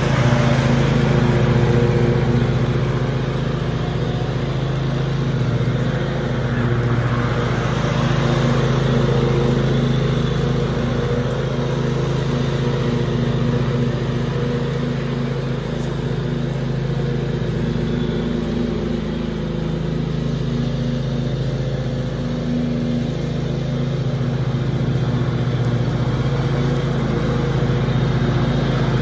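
Zero-turn riding mower's engine running steadily as it mows, a steady hum that grows a little quieter as the mower drives off across the lawn and louder again as it comes back.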